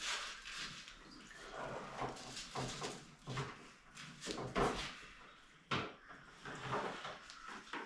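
Irregular knocks, clicks and scrapes of tools and truck parts being handled during disassembly, with the sharpest knocks a little past the middle.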